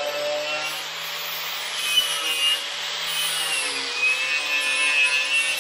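Electric angle grinder running steadily while it grinds body filler and paint off a car's steel front guard. Its motor pitch sags slightly as it is pressed into the work, with a couple of brief louder scrapes about two seconds in.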